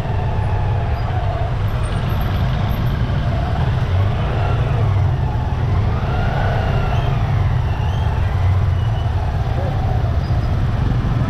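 Motor scooters and motorcycles running close by in slow, crowded traffic, a steady low rumble, with people's voices mixed in.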